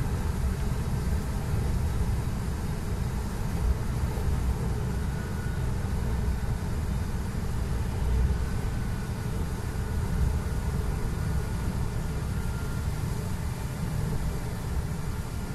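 Steady low rumble of a heavy truck heard from inside its cab as it rolls downhill on a wet road: engine and road noise.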